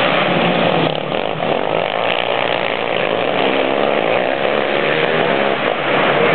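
ATV engine running at high revs, a loud raspy buzz with the engine note wavering as the throttle changes, easing off briefly about a second in.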